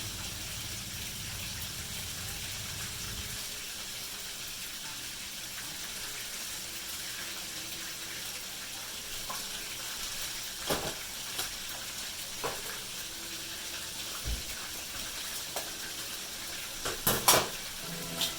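Steady sizzling in a hot frying pan as bolognese sauce and hearts-of-palm noodles go in, with a few sharp clinks of a utensil against the pan. The loudest clinks come near the end.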